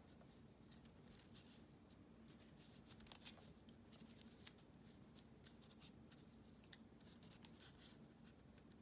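Near silence, with faint rustles and light ticks of paper cutouts being slid and shifted by hand on a cutting mat.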